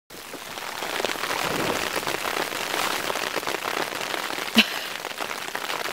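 Steady rain on tent fabric: a dense patter of drops, with one sharper, louder tap about four and a half seconds in.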